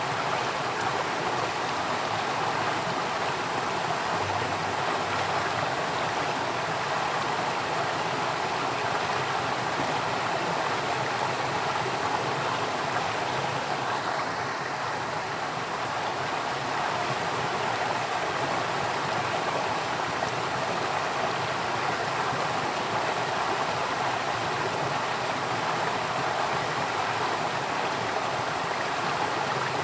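Flowing water rushing steadily and evenly, with no breaks or changes.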